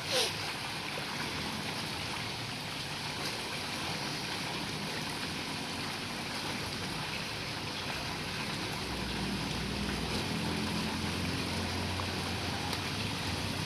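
Steady rush of water trickling and splashing into a koi pond. A brief sharp sound comes right at the start, and a low hum joins about nine seconds in.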